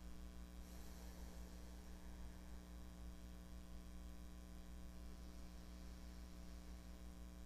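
Faint, steady low electrical mains hum over quiet room tone.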